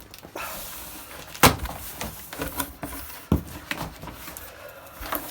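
Cardboard packaging being pulled off and knocked about around a boxed tumble dryer: a sliding, scraping hiss, then a sharp knock about one and a half seconds in, followed by lighter knocks and rustles.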